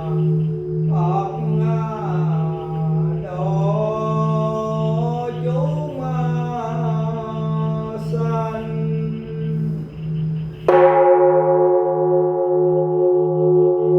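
A voice chanting a melodic Buddhist chant over a steady, evenly pulsing low drone. About eleven seconds in, a temple bell is struck once and rings on with a long sustained tone.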